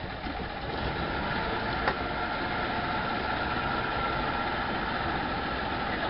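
Boat engine running steadily, heard on board, with a steady whine over the engine noise. A single sharp click about two seconds in.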